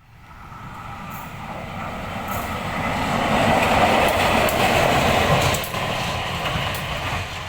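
A train passing close by: the rumble and wheel noise build up over about four seconds, are loudest near the middle, then ease off a little, with sharp clicks over the top.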